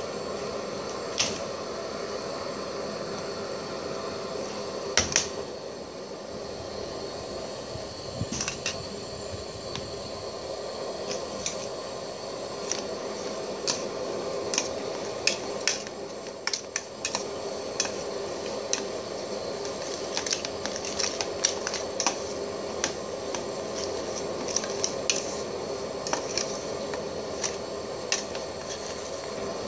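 Kitchen utensils and dishes clinking and tapping at irregular intervals over a steady background hum.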